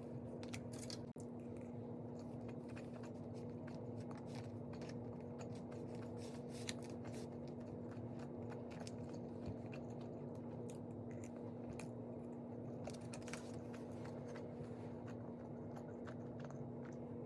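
Steady low electrical hum with a constant tone, overlaid by scattered small crackles and clicks of handling.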